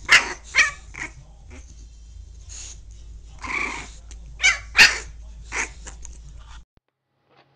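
Bulldog puppy yapping at an adult bulldog, about seven short, sharp barks at uneven intervals, then an abrupt cut.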